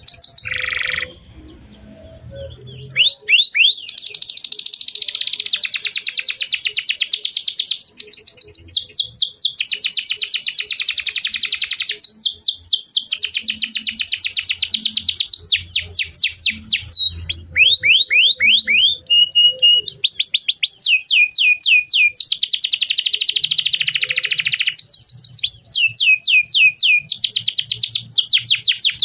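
Domestic canary singing a long, continuous high-pitched song of fast rolling trills and rapid runs of chirps, with a short break about a second in.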